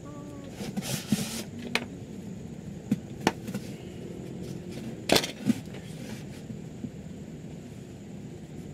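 Hands handling black electrical tape and small parts on a tabletop: a short rasp about a second in, like tape pulled off the roll, then a few sharp clicks and taps, over a steady background hum.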